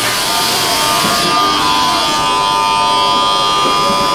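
Robotic milking unit's machinery running: a steady electric whine over a hiss of air, as the feed pan and gates move to let the milked cow out.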